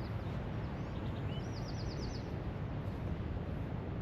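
A small bird chirping, with a quick run of about six high notes around the middle, over a steady low outdoor background noise.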